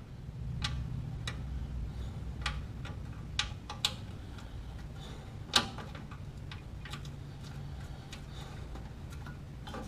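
Scattered light clicks and taps of a riding-mower deck bracket and its pins being handled and worked into place, with one sharper knock about halfway through. A faint low steady hum lies underneath.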